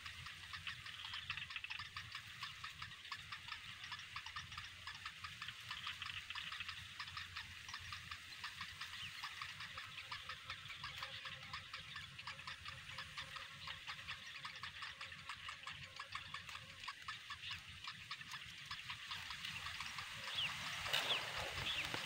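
Nestlings begging with a fast, steady ticking chatter, and a few louder squeaky calls near the end.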